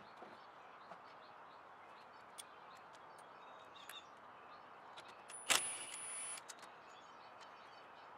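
Work sounds of hand tools and car parts: a few light clicks, then one sharp clack followed by about a second of rasping noise.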